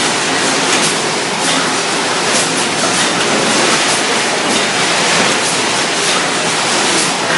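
Robotic bag palletizing line running: conveyor and machinery make a loud, steady, even rushing noise with faint irregular clatter.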